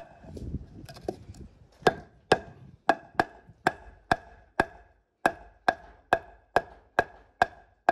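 Claw hammer striking a round wooden roof pole in a steady run of blows, about two a second, each with a short metallic ring. A few lighter knocks come first.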